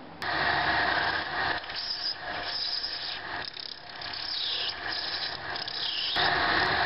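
Lathe turning a replacement part for a broken pipe mouthpiece: the machine running while a hand-held cutting tool works the spinning piece, giving a rasping cutting noise. It starts sharply just after the beginning, eases twice as the tool is eased off, and comes back stronger near the end.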